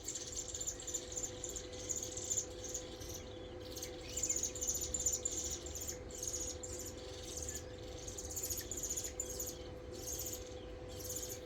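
Insects chirping in rapid, even, high-pitched pulses without a break, over a faint steady hum.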